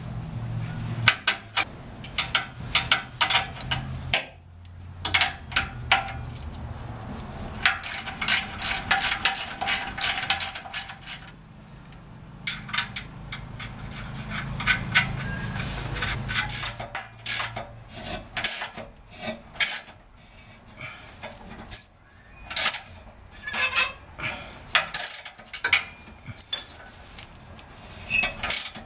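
Hand tools working the bolts that join an exhaust pipe flange to the catalytic converter: runs of quick clicking and sharp metal clinks as the bolts are run in and tightened, with a dense stretch of rapid clicking partway through.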